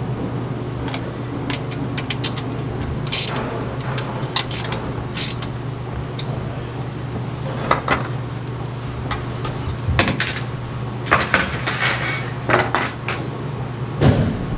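Scattered metallic clinks and knocks of hand work on a bowling pinsetter, over the steady hum of running machinery.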